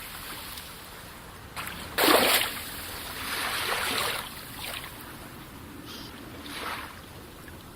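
Calm sea waves splashing and washing in, with the loudest splash about two seconds in, a longer wash soon after, and a smaller splash near the end.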